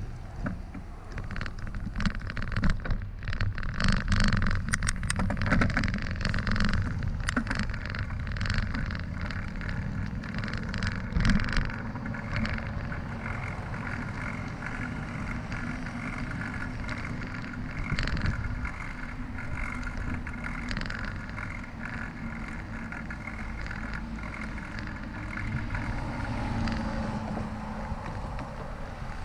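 Ride on a bicycle with the microphone on the bike: jolts and rattles as it rolls over a rough dirt path for the first dozen seconds, then a smoother, steadier rolling sound on a concrete sidewalk. Throughout runs a low rumble of wind on the microphone and road traffic passing nearby.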